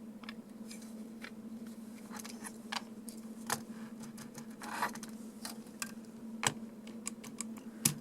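Small clicks, taps and light knocks of HO-scale model locomotive parts being handled and set down on a workbench, with a short rustle about five seconds in, over a steady low hum.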